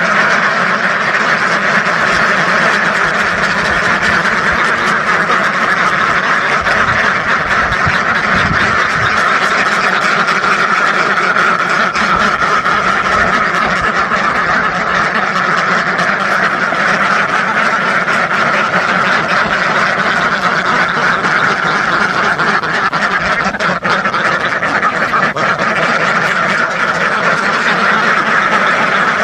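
A large flock of ducks quacking all at once, a dense, unbroken din of overlapping calls with no pauses.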